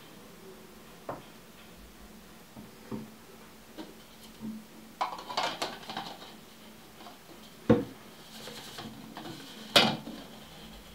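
Handling noise from a Canon EF 100-400mm telephoto zoom lens on a wooden desk: scattered clicks and rubbing, then two loud knocks about three and a half and one and a half seconds from the end, the second as the lens is stood upright on its hood on the desk.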